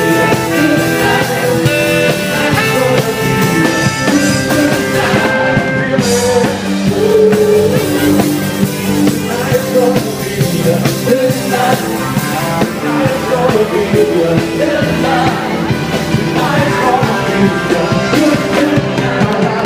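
A live band playing with a steady drum beat, and a lead singer singing into a microphone over it.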